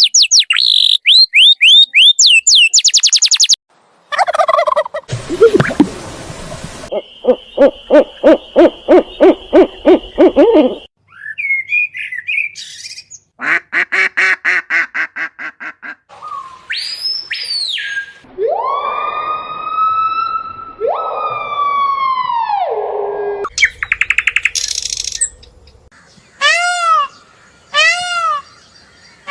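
A string of different bird calls and songs spliced one after another, each lasting a few seconds and changing abruptly: fast repeated whistled notes, rapid trills and chatter, and longer drawn-out calls.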